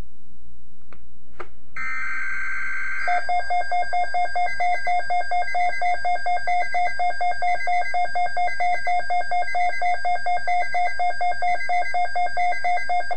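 Emergency alert broadcast signal: a short warbling data burst, then a loud attention tone beeping rapidly, about four beeps a second, for about ten seconds. It announces an Environment Canada severe weather alert.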